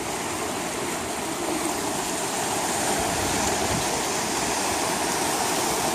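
Steady, loud rush of ocean surf washing on the beach.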